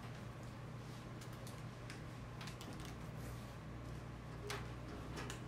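Quiet classroom room tone: a steady low hum with scattered faint clicks and taps, one a little more distinct about four and a half seconds in.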